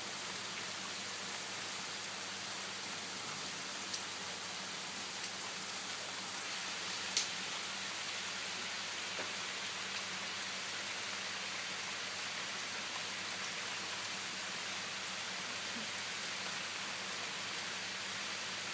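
Steady rain falling, an even hiss, with one sharp tick about seven seconds in.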